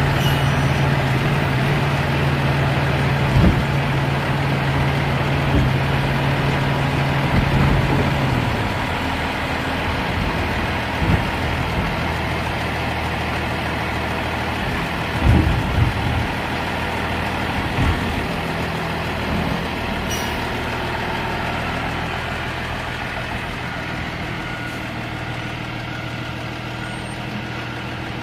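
Freightliner M2 garbage truck's diesel engine running with a steady hum while its automated side arm works the cart, with several clunks and knocks along the way. About eight seconds in the engine's hum drops lower, and near the end the sound fades as the truck pulls away.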